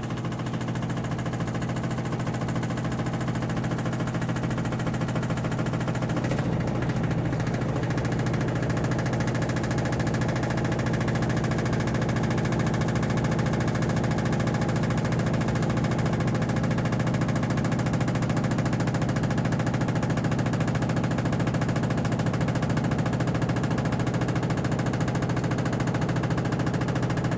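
Washing machine on its spin cycle: a steady mechanical hum with a fast vibrating rattle, growing a little louder over the first several seconds.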